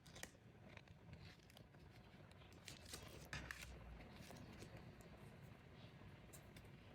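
Faint rustling and light clicks of plastic packaging being handled and pulled open, busiest about three seconds in.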